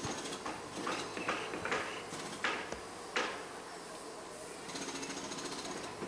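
Camcorder zoom motor buzzing through the camera's built-in microphone in two stretches, at the start and again near the end, with a few short sharp sounds in between.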